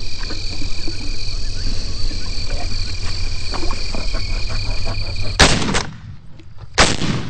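Two shotgun shots about a second and a half apart, each a sharp blast with a short ringing tail.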